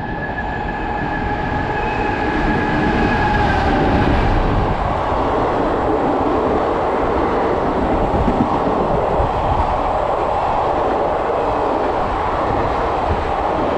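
Indian Railways passenger train with blue coaches running through a station. A horn sounds steadily for the first few seconds, then the steady rumble and clatter of the coaches rolling past.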